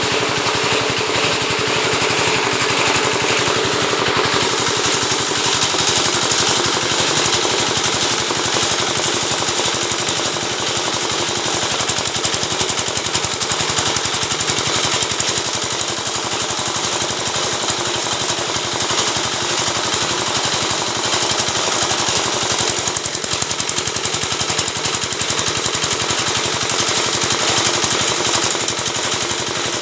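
Oil-palm lidi (leaf-midrib) scraping machine running, a loud, steady, very rapid clatter that goes on without a break.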